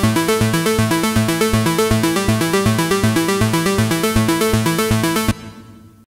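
Roland JUNO-60 software synthesizer playing a fast arpeggiated preset: a rapid run of repeating synth notes over a pulsing bass. It stops about five seconds in, leaving a short fading tail.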